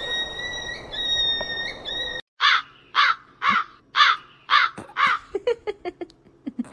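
A Shiba Inu-type dog gives a long, high, steady cry. It breaks off suddenly about two seconds in, and a small long-haired dog follows with six short, falling cries about two a second, trailing off into quick faint clicks.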